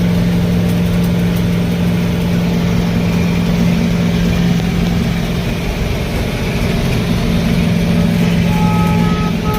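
Diesel engine of heavy farm harvest machinery running steadily, a loud even drone. Near the end an intermittent two-tone electronic beeping starts up over it.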